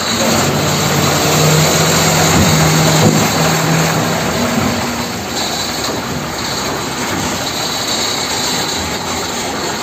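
A vehicle engine running steadily with a broad noise, with a low drone for the first three seconds or so.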